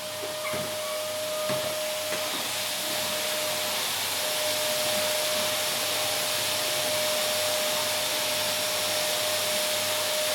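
Vacuum cleaner running steadily: an even, airy hiss with a constant whine underneath and a few faint clicks in the first two seconds.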